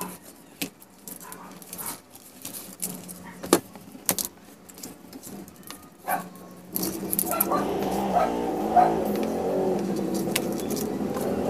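Scattered small clicks and light rattling from wires, plug connectors and a screwdriver being handled on a circuit board. About seven seconds in, a louder continuous wavering sound from another source comes in and carries on.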